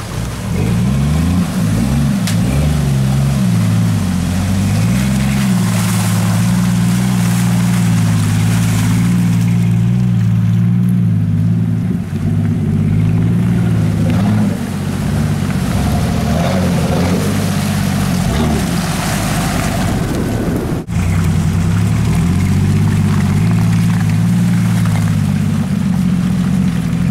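Jeep engines working through mud, the engine pitch rising and falling repeatedly as the throttle is worked, then holding steadier under load. The sound drops out briefly once, about 21 seconds in.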